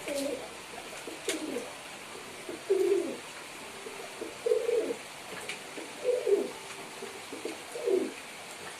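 Domestic pigeons cooing: about six low coos, one every second or two, each wavering and dipping in pitch.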